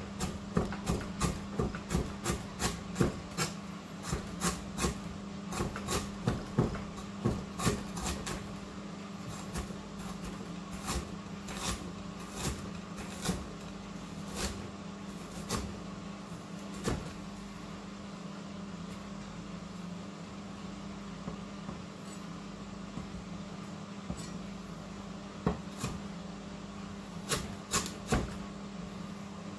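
Knife chopping on a cutting board, with quick steady strokes of about two a second for the first several seconds, then scattered single cuts and a short run of chops near the end.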